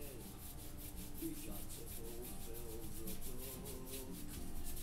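Paintbrush scrubbing acrylic paint onto a painted wall in quick back-and-forth strokes, a dry scratchy rubbing, as the paint is worked in to blend a misty sky. Soft background music underneath.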